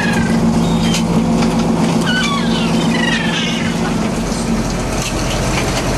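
Fishing boat's engine running steadily, with gulls calling over it: several short cries falling in pitch, bunched in the middle.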